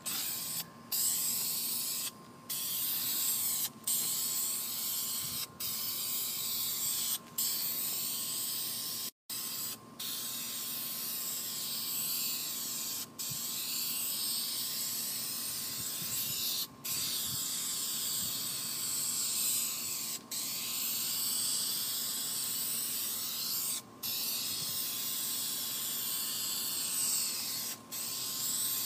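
Aerosol spray can of fabric paint hissing in long passes of one to four seconds, each broken by a brief pause where the nozzle is let go.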